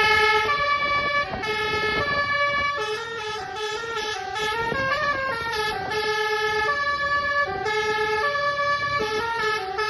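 Bus telolet horn, a multi-tone musical air horn, playing a tune: a quick, unbroken run of held and stepping notes.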